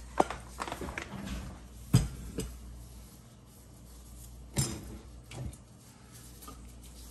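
Scattered knocks and clinks of kitchenware being handled on a counter, a handful of separate strikes with the loudest about two seconds in and another just past the middle.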